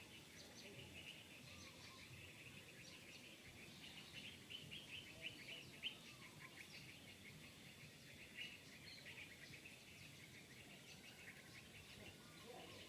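Faint, rapid high-pitched chirping of small birds over a low background hiss.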